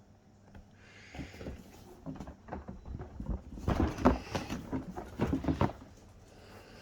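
Packaging of a Fluval 407 canister filter being handled during unboxing: a run of rustles, scrapes and small knocks, busiest and loudest in the middle, dying away about a second before the end.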